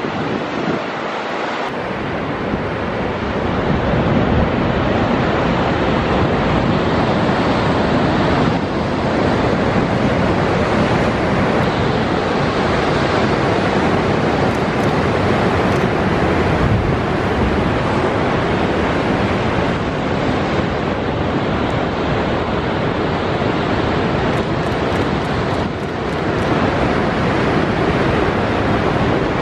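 Heavy surf breaking against limestone sea cliffs, with blowholes venting spray: a loud, steady wash of sea noise that swells over the first few seconds. Wind buffets the microphone.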